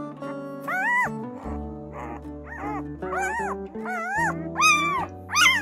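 A week-old German Shepherd puppy squealing in a string of about six short cries, each rising then falling in pitch, the last two the loudest, over background music.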